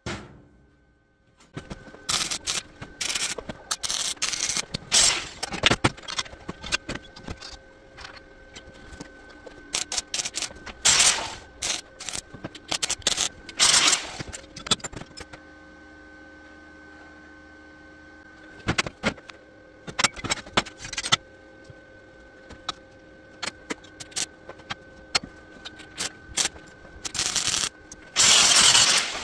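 Square steel tubes clanking and scraping on a steel welding table, broken by a few crackling bursts of arc welding about a second long each as the frame pieces are tack-welded together, the longest near the end.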